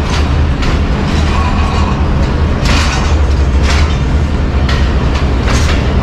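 Passenger train coaches rolling slowly past alongside a station platform as the train pulls in, the wheels clacking over rail joints about once a second over a steady low hum.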